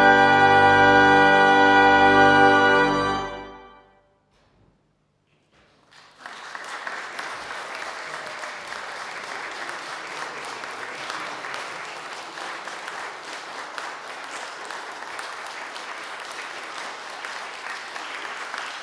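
Brass ensemble and pipe organ holding the final chord of the piece for about three seconds, dying away into a moment of silence. Audience applause breaks out about six seconds in and continues steadily.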